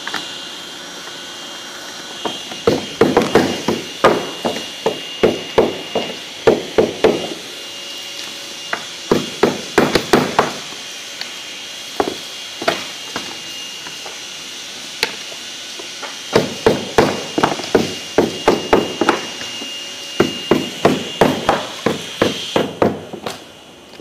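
A hammer tapping in quick runs of light blows, several a second, with pauses between the runs. A steady high whine runs underneath and stops near the end.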